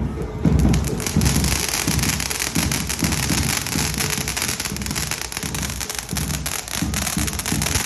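Fireworks crackling continuously: a dense, rapid stream of small pops and crackles, with no break.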